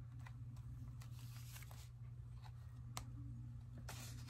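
Faint paper rustling and light ticks as junk journal pages of thick paper and chipboard are handled and turned, over a steady low hum.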